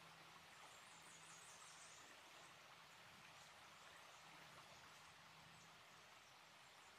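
Near silence: faint, even background hiss.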